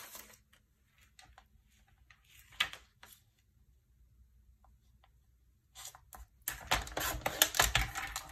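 Paper handled and lightly tapped while being lined up on a sliding-blade paper trimmer. From about six and a half seconds in comes a longer scraping run as the trimmer's blade slides down its track, cutting a strip off the designer series paper.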